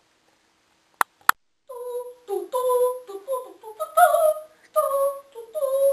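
Two sharp clicks in quick succession, then a high voice singing a melody in held, sliding notes, with no instruments behind it.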